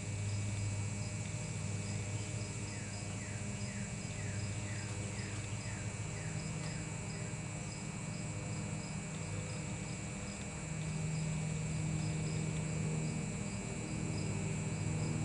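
Crickets chirping steadily in a fast, even rhythm over a constant low hum. A run of short, falling chirps, about two a second, comes in a few seconds in and stops about halfway through.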